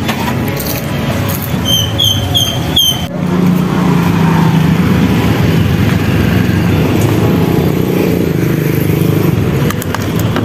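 Motor vehicle engine running steadily amid street noise. Early on there are four short, high chirps, each about a third of a second long.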